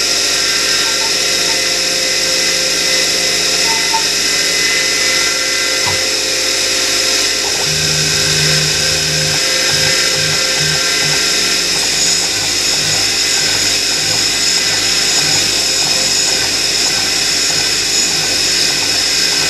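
Mini mill's spindle motor running steadily while a 4.5 mm twist drill cuts through an aluminium block, a steady whine with a bright high-pitched hiss. In the second half a lower rumble comes and goes as the bit is fed into the metal.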